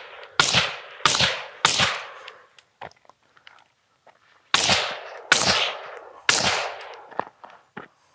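Six suppressed 5.56 rifle shots from an 11.5-inch AR fitted with a full-size B&T SRBS 556 reduced-back-pressure suppressor, fired in two strings of three with a pause between, heard from 10 to 15 yards off the gun. Each shot has a deep, thuddy tone rather than a crack, and a short echoing tail.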